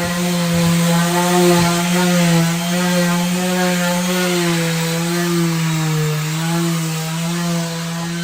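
Small electric sander running steadily while sanding the boat cabin's wooden walls, its motor hum wavering and dipping slightly in pitch over a gritty rasp as it is pressed against the surface.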